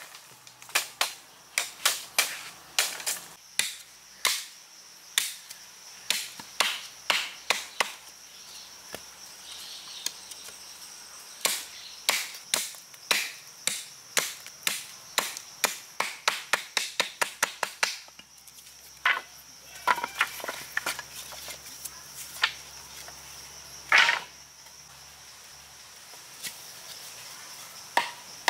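A wooden stake being sharpened with repeated chopping strokes against a log: a fast run of sharp wooden chops, about two a second, that thins to a few spaced strikes in the last third. A steady high insect drone runs underneath.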